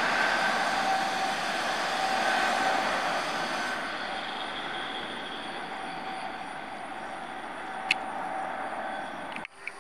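Jet engine noise from an IndiGo Airbus A320-family airliner climbing away after takeoff: a steady rush with a faint droning tone in it, slowly fading as the aircraft recedes. A brief sharp click comes about eight seconds in, and the sound cuts off abruptly near the end.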